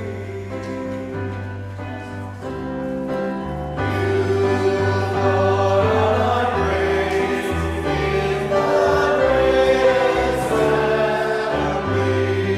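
Choir singing a psalm response over sustained chordal accompaniment with steady bass notes, growing louder about four seconds in.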